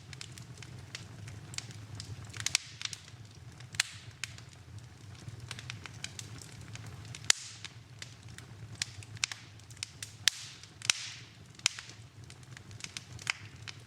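Wood fire burning in a fireplace: irregular crackles and sharp pops, the loudest just over 7 seconds in and around 10 to 11 seconds in, over a low steady rumble of the flames.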